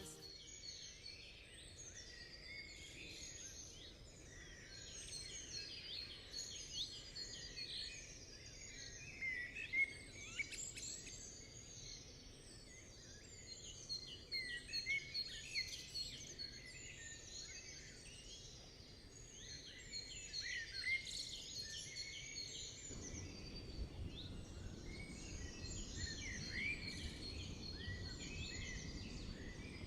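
Woodland songbirds singing in a faint morning chorus, many overlapping chirps and whistles. A low background rush of wind gets louder about two thirds of the way through.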